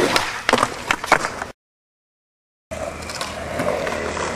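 Skateboard on concrete: a few sharp clacks of the board hitting the ledge and ground in the first second and a half, then the sound cuts out to dead silence for about a second before wheels are heard rolling over concrete.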